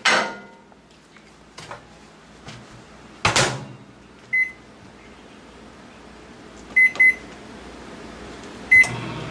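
Panasonic microwave oven being loaded and started: a glass dish clatters onto the turntable, the door is shut with a knock, then four short high keypad beeps as five minutes is entered and the start pressed. The oven starts running right at the end.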